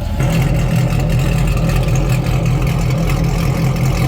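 Chevrolet Camaro SS V8 idling through a Corsa exhaust fitted with an electronic cutout valve: a steady, deep exhaust note that gets louder and fuller just after the start.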